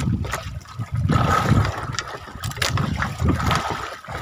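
Sea water sloshing and splashing around a small wooden fishing boat, with uneven low rumbling and a few short knocks.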